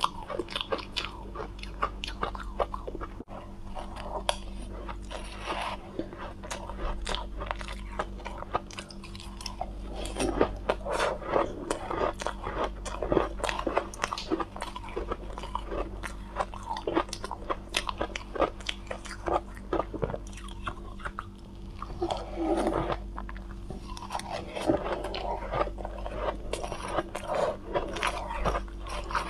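Soft, fluffy shaved ice being bitten and chewed into a close clip-on microphone: a continuous run of crunching. The crunching is denser at some moments than at others.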